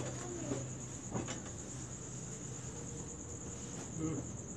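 A cricket trilling continuously on one high note, with a light knock about a second in.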